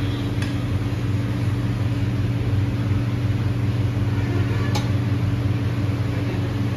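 Steady low machine hum, with a light click about half a second in and another near five seconds.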